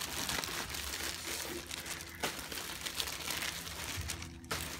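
Plastic shipping bags, a white poly mailer and the black bag inside it, crinkling and rustling irregularly as hands pull and work at them to get them open.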